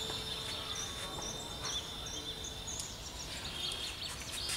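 Outdoor background: a steady high-pitched tone that stops about three seconds in, with small high chirps and a few faint clicks.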